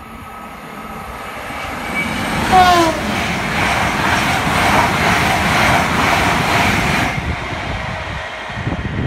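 Intercity passenger train approaching and then passing close at speed: its noise builds, a brief falling tone sounds at the loudest moment about two and a half seconds in, and then comes a steady rush as the coaches go by. After about seven seconds this gives way to a lower rumble as the train runs away into the distance.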